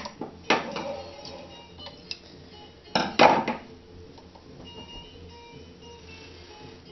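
A few knocks and a clatter of objects being handled, the loudest about three seconds in, then faint background music.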